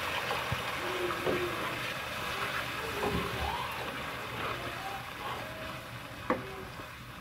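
Hot water poured from a bowl into a non-stick pan of frying masala, the sizzle slowly dying down as the water goes in, with a metal spatula stirring and scraping through the thinning gravy. A single sharp knock of the spatula against the pan near the end.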